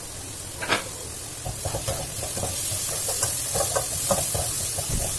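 Black plastic spatula stirring and scraping diced vegetables around a non-stick wok, over a steady sizzle of frying in oil. There is a single knock just under a second in, and quick repeated scraping strokes from about a second and a half on.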